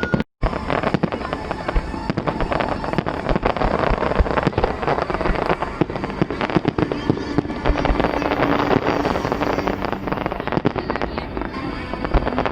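Fireworks display: a dense, continuous barrage of crackling pops and bangs, with a brief cut-out in the sound just after the start.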